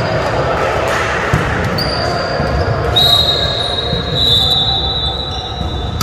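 Indoor volleyball being played in a large echoing gym: ball contacts and players' voices over the hall's reverberation. A high, steady squeal comes in about two seconds in and another about three seconds in, lasting to the end.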